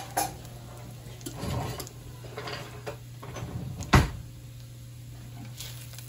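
Slotted spatula scraping and knocking against a wok as stir-fried shredded beef is scooped out onto a plate: a few scrapes and sharp knocks, the loudest about four seconds in, over a steady low hum.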